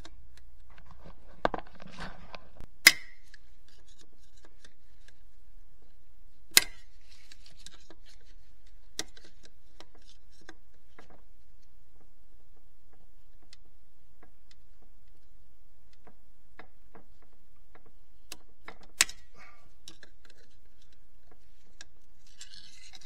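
Sharp metallic clicks and light scraping of snap ring pliers working a snap ring off a Getrag HM290 transmission's input bearing, scattered with long pauses; the loudest clicks come about three, six and a half and nineteen seconds in.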